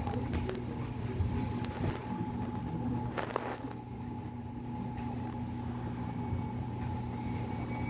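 Seoul Subway Line 2 electric train running between stations: a steady rumble of wheels on the track, with a steady motor hum. There is a brief louder rattle about three seconds in.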